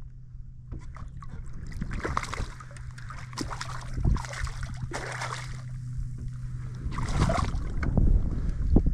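Hooked speckled trout thrashing and splashing at the water's surface as it is played to hand, a series of splashes with the sharpest about four seconds in. A steady low hum runs underneath until about seven seconds in.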